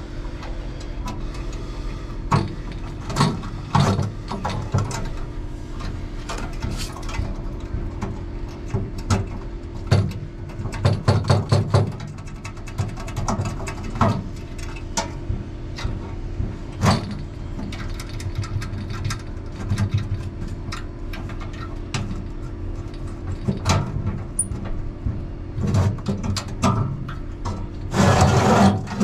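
Hand work on metal parts in an evaporative condenser's pump sump: scattered knocks and clinks with a quick run of clicks partway through, over a steady low hum.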